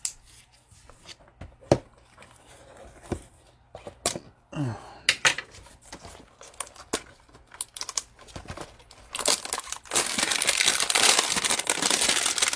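Gloved hands opening a cardboard trading-card hanger box: scattered clicks, taps and scrapes of the knife and cardboard, then from about nine seconds in, loud, dense crinkling and tearing of the plastic wrapping inside.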